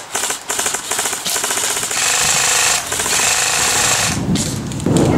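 Airsoft electric gun (AEG) firing rapid full-auto bursts, the gearbox rattling out shots in quick succession. Near the end a low rumbling noise takes over.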